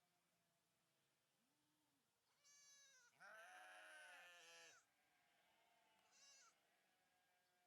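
Sheep bleating: a short bleat, then a longer, louder bleat straight after it, and a brief bleat near the end.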